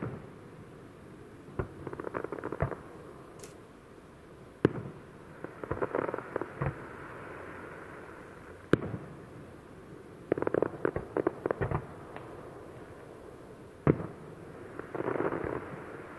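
Aerial fireworks shells bursting: four sharp single bangs about four to five seconds apart, each followed about a second later by a cluster of rapid crackling pops.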